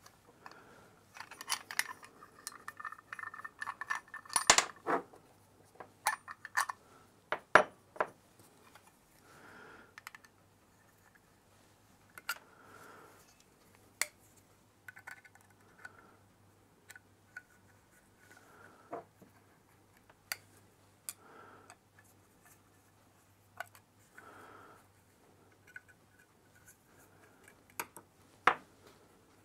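Small metal clicks, taps and scrapes as a vintage Ripault petrol gauge is taken apart by hand and the small screws of its bezel are worked with a screwdriver. The clicks come irregularly, a few sharper ones standing out about four and a half and seven and a half seconds in.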